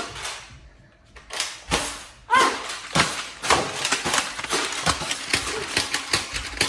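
Foam-dart toy blasters being primed and fired, a rapid string of sharp clicks and snaps. They start about a second in and come several a second from about two and a half seconds on.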